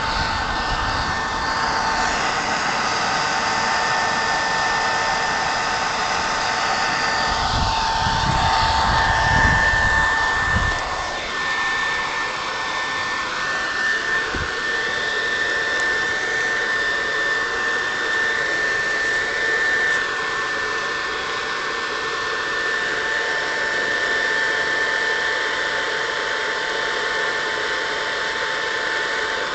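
Handheld leaf blower switched on, spinning up quickly to a steady whine and running continuously as it blows air into a fire pit, with a brief gusty rumble about eight to eleven seconds in.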